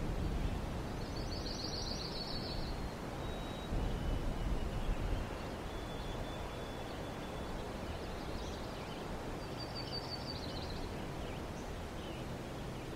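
Outdoor ambience: a steady low rumble of background noise, with two short high chirping trills, one about a second in and another near ten seconds.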